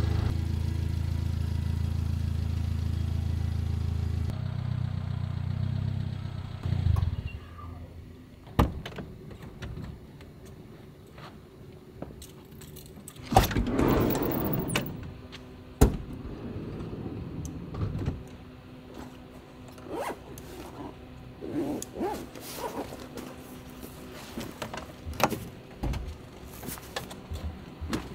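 A low steady drone for about the first six seconds, then scattered clicks, knocks and rustling as bags and gear are moved about in a kei van, with a louder rustling scrape about halfway through.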